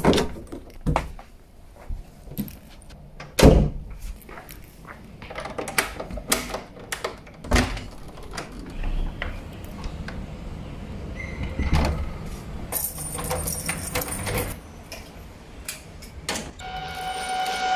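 Door hardware being worked: a round door knob turned and a lever handle pressed, latches clicking and doors knocking shut, then the handle and lock of a metal grille security gate rattling. Music comes in near the end.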